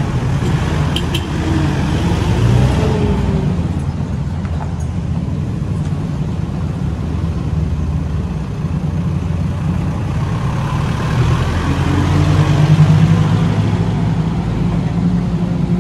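Mitsubishi Triton 4x4 pickup engines running as the trucks pull away. The engine note rises twice, about two seconds in and again near the end.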